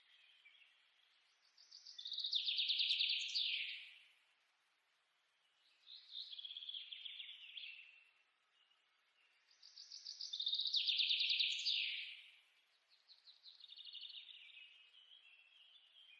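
A songbird singing: four rapid trilled phrases of about two seconds each, a few seconds apart, the first and third loudest.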